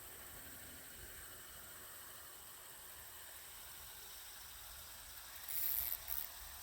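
Quiet outdoor background: a faint steady hiss, broken about five and a half seconds in by two short bursts of high, hissing noise.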